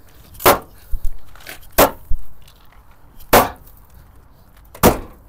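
Four heavy hammer blows on a car's body, each a sharp bang, about a second and a half apart, with a few lighter knocks between them.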